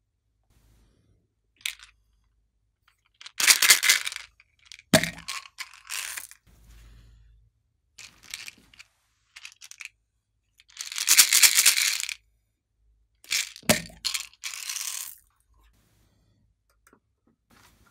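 A series of crisp crackling and crinkling bursts, each lasting up to about a second and a half, several seconds apart, with two sharp clicks about five seconds in and again near fourteen seconds.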